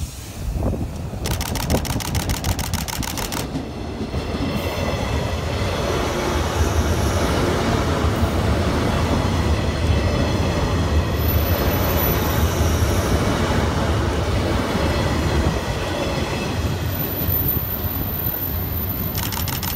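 JR West 201 series chopper-controlled electric train passing at speed through a station, its wheels clattering over the rails and the noise building to a steady run that is loudest in the middle, then easing as the train moves away. A rapid ticking sounds for about two seconds near the start.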